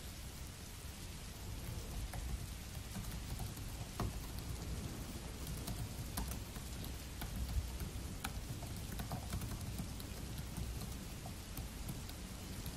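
Steady rain falling, with scattered clicks of typing on a laptop keyboard over it.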